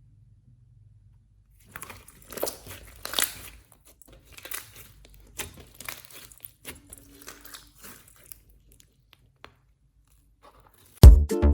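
Slime being squeezed and kneaded by hand, giving irregular crackling and crunchy pops with quiet gaps between. Loud music with a strong beat starts near the end.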